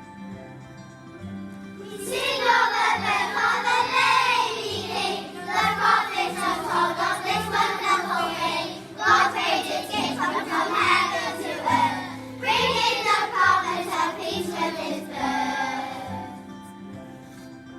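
A group of children singing together over a steady instrumental backing. The singing comes in about two seconds in, pauses briefly twice, and stops shortly before the end, leaving the backing alone.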